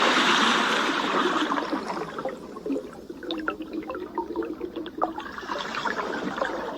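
Rushing water sound effect: a loud rush that fades into gurgling, broken by many short bubbling blips, then cuts off abruptly.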